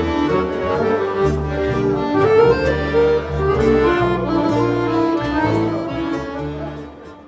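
Instrumental music, a melody over a steady bass line, fading out near the end.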